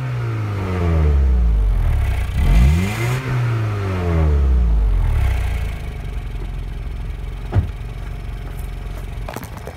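Honda Accord's F23A1 2.3-litre four-cylinder engine heard at the tailpipe: the revs fall away from a held throttle, come up once more in a short blip about two and a half seconds in, and settle back to a steady idle by about six seconds. A sharp knock sounds about seven and a half seconds in, and a few clicks near the end.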